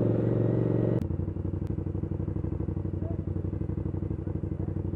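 Motorcycle engine running on the move, then cut off abruptly about a second in to the same kind of engine idling with a quick, even pulse.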